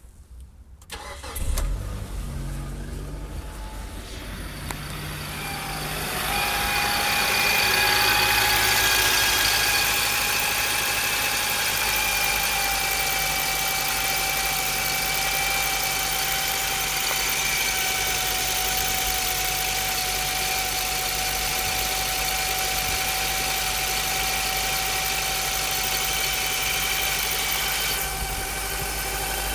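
Mitsubishi Lancer four-cylinder engine starting in freezing cold about a second and a half in, then idling with a steady high whine that slowly eases down a little in pitch. This is the noise the car makes in frost.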